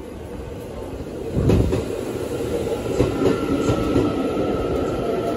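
Taiwan Railways electric commuter train pulling into the platform. Its wheels clack over rail joints, and a steady high whine comes in about two seconds in as the cars roll past.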